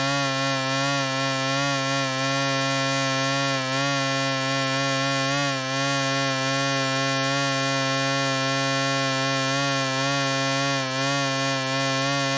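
Fly buzzing in flight, a continuous wingbeat hum whose pitch wavers slightly.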